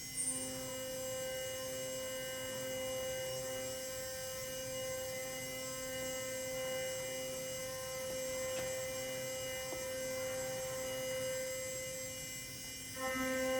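Hobby CNC router spindle running at a steady high-pitched whine while milling an aluminium part. Near the end the whine gets louder and takes on more overtones.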